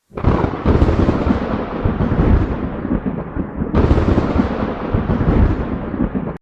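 Loud, deep rumbling noise that starts suddenly, with a second sharp crash about four seconds in, then cuts off abruptly.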